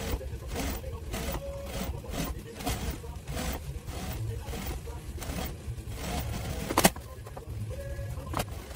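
Sewing work at a Juki industrial sewing machine, played back four times fast: irregular clicks and scraping of fabric handling over a low hum, with one sharp, loud click about seven seconds in.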